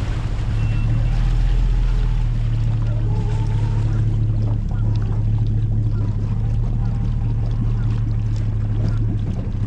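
Engines idling steadily, a low even hum, while a bass boat backs off its trailer into the water on its outboard motor.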